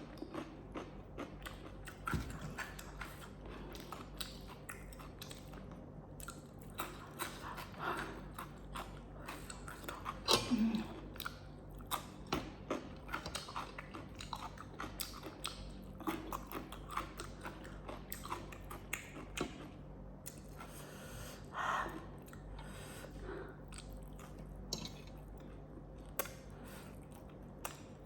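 A person chewing and biting food close to the microphone: irregular wet mouth clicks, smacks and light crunches.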